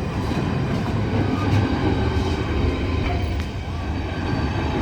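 Freight train wagons rolling slowly past over the rails: a steady low rumble with faint, irregular clicks.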